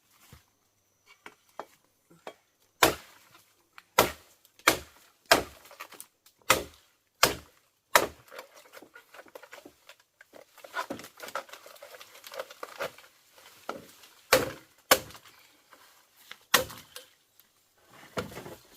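A blade chopping bamboo in sharp single strikes, about one every two-thirds of a second in the first half. A stretch of rustling and scraping follows, then a few more strikes near the end.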